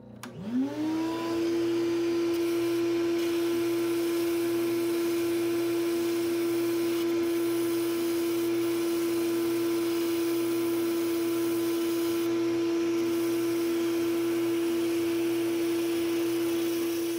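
Spindle sander switched on: its motor spins up with a quickly rising whine in the first second or so, then runs with a steady whining hum while a small wood block is sanded against the homemade sanding drum.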